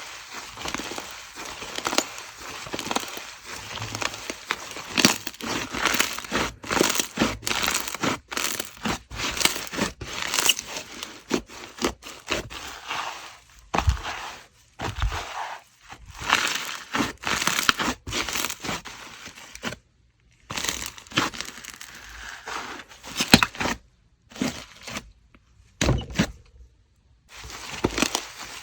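Watermelon slime being squeezed and pressed by hand, giving a dense, irregular run of crackling and popping clicks, with a few short silent breaks in the second half.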